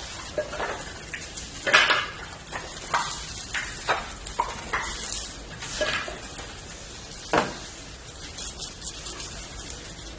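Firewood burning with water, crackling and popping at irregular intervals over a steady sizzling hiss.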